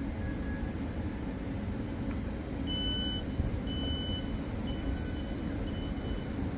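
Steady low rumble of a busy railway station, and from nearly three seconds in a high electronic warning beep repeating about once a second, as from a reversing alarm.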